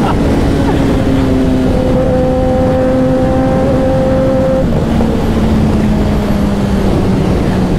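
Sport motorcycle engine running steadily on the move, its pitch falling slowly as the bike eases off, over a heavy low rush of wind and road noise.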